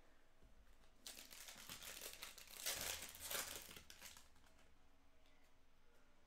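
Trading-card pack wrapper torn open and crinkled by hand, a crackling rustle that starts about a second in and stops after about three seconds.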